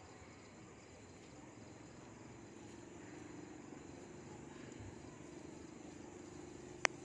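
Faint quiet-street ambience: a steady high-pitched insect drone over a low steady hum that grows slightly louder after the first second or two, with one sharp click near the end.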